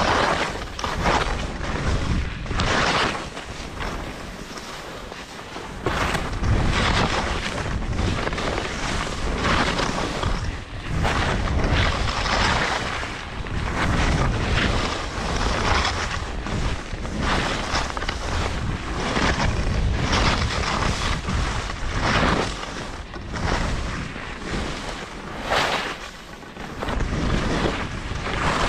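Skis scraping and sliding over snow on a run through a glade, surging with each turn every second or two, under a steady rumble of wind buffeting the microphone.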